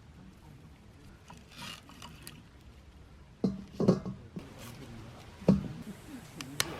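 A few short knocks and clinks of tableware with small liquid sounds, the handling of dishes and drink at a meal.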